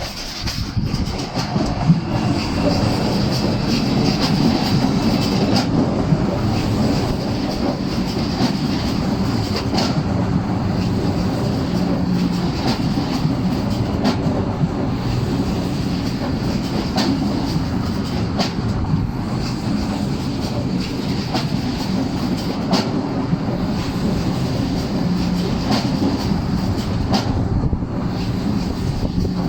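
Deutsche Bahn ICE 4 (Class 412) high-speed train rolling into the station, its wheels clicking over rail joints and points. A high wheel squeal runs through roughly the first third.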